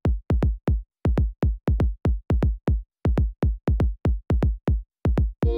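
Electronic background music: a drum-machine kick drum playing a steady beat on its own, each kick dropping in pitch, with brief silences between hits.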